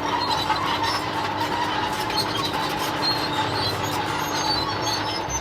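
Bulldozer working: its engine running with a steady whine over dense metallic clatter from the tracks.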